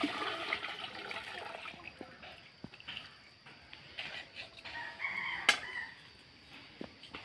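Rooster crowing with chickens clucking, and one sharp knock about five and a half seconds in.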